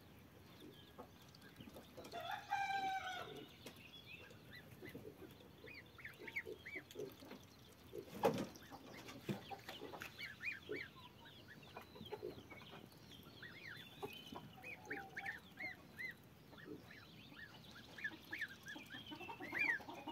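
Domestic goslings peeping in a steady run of short, high chirps. A longer, lower call from another bird comes about two seconds in, and a single sharp knock about eight seconds in is the loudest moment.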